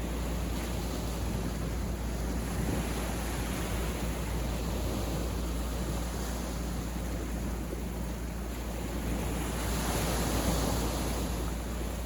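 Sea waves washing onto a beach in a steady hiss of surf, with one wave swelling louder about ten seconds in.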